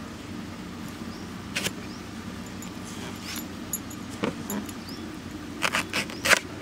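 Kitchen knife cutting through a raw green plantain onto a wooden cutting board. There is a single knock about a second and a half in, then a quick cluster of sharp knocks near the end, the last the loudest, over a steady low hum.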